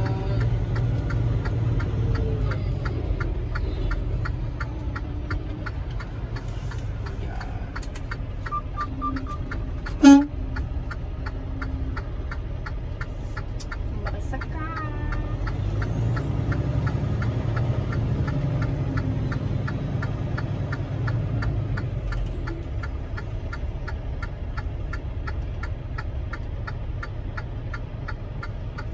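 Semi-truck tractor's diesel engine running steadily in the cab, with a regular fast ticking throughout. A short run of high beeps comes about nine seconds in, then one brief, loud, sharp sound.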